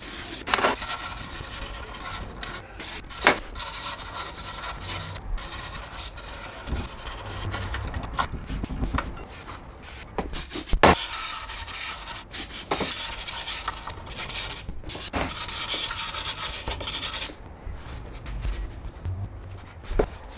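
Rubbing and scrubbing on a ZF 6HP26 transmission's aluminium bell housing as it is cleaned with spray parts cleaner, a brush and a rag, with a few sharp knocks along the way. The rubbing dies down a few seconds before the end.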